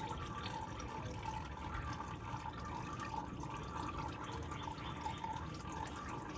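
Engine oil trickling and dripping out of a 2004 Porsche 911 Carrera 2 as it drains during an oil change, a steady trickle with drips falling a couple of times a second.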